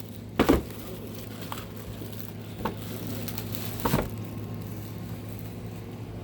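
A few light knocks and rustles from plastic carpet-washer parts being handled, over a steady low hum: a double knock about half a second in, then single knocks near 3 and 4 seconds.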